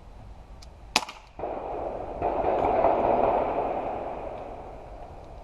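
A single sharp shot from a CO2 BB pistol about a second in. A rushing noise then swells and slowly fades over the next few seconds.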